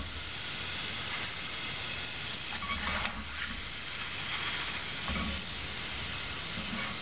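Hot deep-frying oil sizzling steadily in a kadai after a batch of diced potatoes, with a few slightly louder moments as pieces are lifted out.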